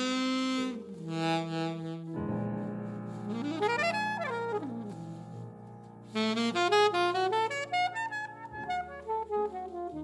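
Alto saxophone playing a jazz ballad with piano accompaniment. The sax holds a note at the start, runs quickly up and back down about four seconds in, then plays a busier line of short notes over sustained piano chords in the second half.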